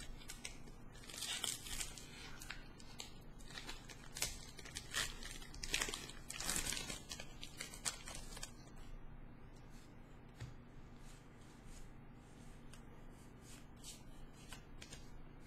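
Foil Pokémon booster pack wrapper being torn open and crinkled in the hands for about the first eight seconds. It is followed by fainter scattered ticks as the cards inside are handled.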